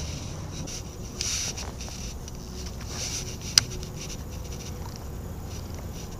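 Wind rumbling on the microphone with light water noise around the kayak, a few small rustles from handling the rod and reel, and one sharp click about three and a half seconds in.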